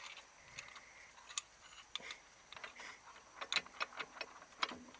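Irregular metallic clicks and clinks of hand tools and steel parts being handled during hub and bearing work, about a dozen sharp ticks spread unevenly, with a small cluster a little past halfway.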